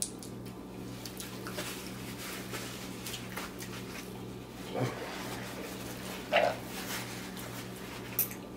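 Close-miked chewing and mouth sounds of a person eating a burger and fries, with small wet clicks and a couple of short, louder mouth noises about five and six and a half seconds in. A steady low electrical hum lies underneath.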